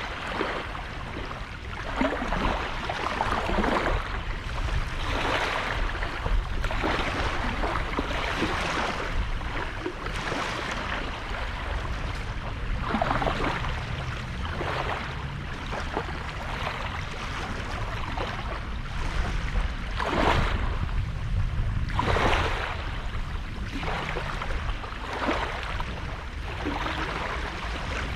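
Small sea waves breaking and washing up on a sandy beach, one surge every second or two, over a steady low rumble.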